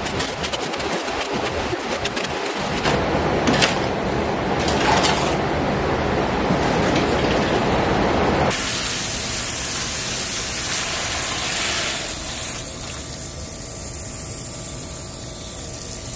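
Water hissing from a garden hose spray nozzle onto wet concrete. Over the first half a mixing hoe rasps through the concrete in a steel wheelbarrow. The sound changes abruptly about halfway in to a steadier, brighter hiss of spraying water.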